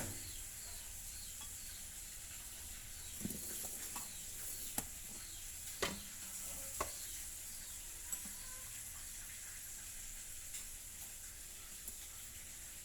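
A whisk stirring a dry mix of flour, sugar and salt in a mixing bowl: a steady soft rustle with a few sharp taps of the whisk against the bowl.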